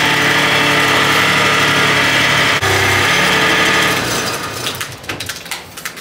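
Skid steer engine running with a steady whine over it while the loader lift is worked but does not raise, which the owner suspects is a valve let go in the valve bank. The engine dies away about four seconds in, followed by a run of clicks and knocks.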